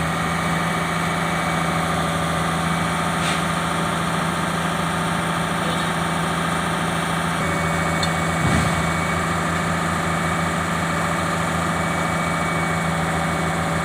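Excavator diesel engine idling steadily, with a brief dip in pitch and recovery about eight seconds in.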